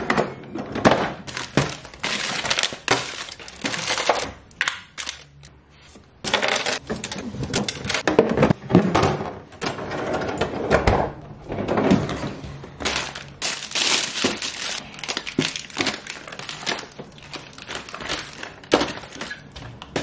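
Plastic bags of frozen food crinkling and knocking as they are handled and lifted out of a freezer drawer, with clunks from the drawer and its plastic bins.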